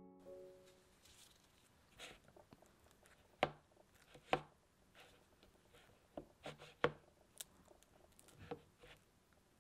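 A spatula working softened butter in a bowl: soft squishing and scraping with about a dozen irregular sharp clicks and taps of the spatula against the bowl.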